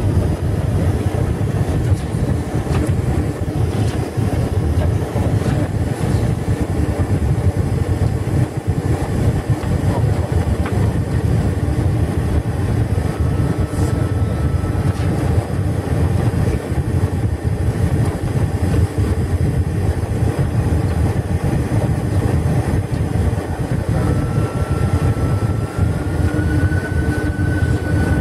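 Steady cabin noise inside a Boeing 747-400 on its descent to land: a low rumble of engines and rushing air. A faint high whine comes in briefly about halfway through and again near the end, where it steps up a little in pitch.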